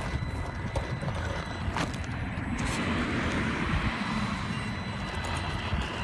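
Tamiya CC-01 RC crawler climbing over loose limestone rubble: a steady thin high whine from its electric drivetrain over the crunch and clatter of its tyres on the stones. The crunching grows denser about halfway through.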